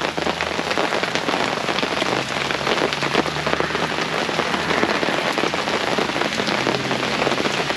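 Heavy, steady rain falling on a fabric canopy tent overhead, a dense patter of countless drops that the speaker calls pretty loud in the tent.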